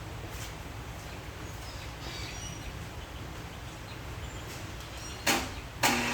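Steady low background hum with a few faint chirps, then two sharp clacks about half a second apart near the end as a vintage three-phase electric siren is switched on; right after the second clack its motor just begins to wind up.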